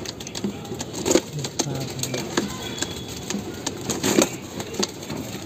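Irregular clicks and rustling from a pigeon being handled and turned in the hands.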